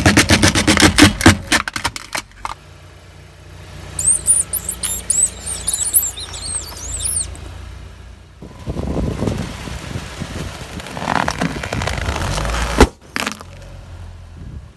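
Car tyre rolling over and crushing plastic toys on asphalt: a dense run of plastic cracking and snapping in the first two seconds, then high squeaks, then crunching under the tyre and one sharp pop near the end as an inflatable toy bursts.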